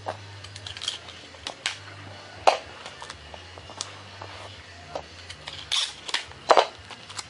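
Box tape being pulled off the roll, torn and pressed down onto paper plans: a series of sharp snaps and short rips, loudest about two and a half seconds in and twice near the end.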